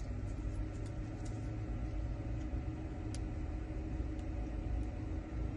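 Steady low mechanical rumble with a faint steady hum, like an idling engine, and a few faint light clicks.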